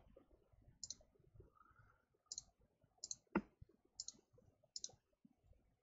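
Faint computer mouse clicks: about six quick ticks spread a second or so apart, several heard as a double tick of the button going down and up, as points of a sketch line are placed.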